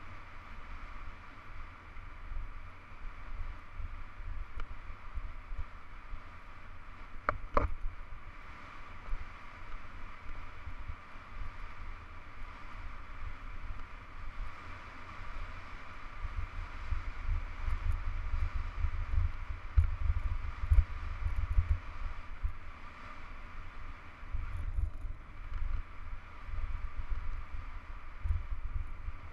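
Wind buffeting the microphone and the hiss of a hardtail mountain bike's tyres rolling fast down a gravel dirt road. The low rumble of the wind gusts heavier past the middle. One sharp knock sounds about seven seconds in.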